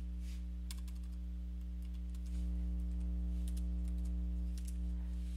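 A few scattered keystrokes on a computer keyboard, over a steady electrical hum.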